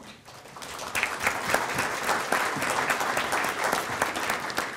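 Audience applauding: many hands clapping, building up over the first second, then steady and starting to thin out near the end.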